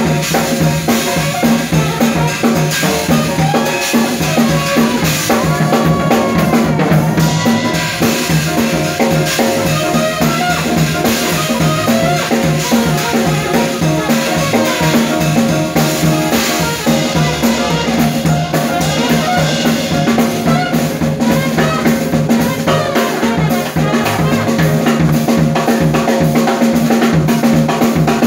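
Live small-band jazz: a drum kit played close up, its strokes the loudest part, with trumpet lines over it and an upright bass underneath.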